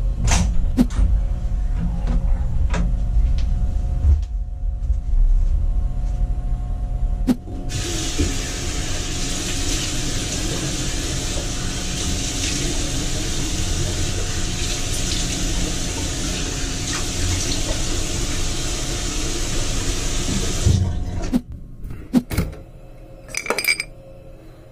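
A low rumble with a few knocks, then a bathroom washbasin tap running steadily into the basin for about thirteen seconds while someone washes their face at it. The water cuts off suddenly a few seconds before the end, followed by a few light clicks.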